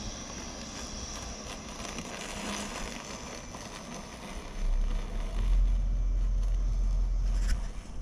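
Outdoor background hiss, then wind buffeting the microphone as a strong low rumble from about halfway through, stopping shortly before the end.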